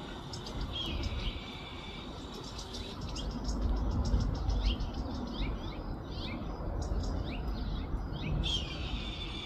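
Recorded red-tailed hawk screams played through a phone speaker: one long falling scream about a second in and another near the end. Small birds chirp rapidly in between.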